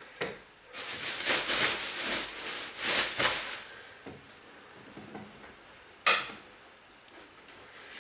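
Rustling and handling noise of clothes being packed away for about three seconds, followed by a single sharp knock about six seconds in.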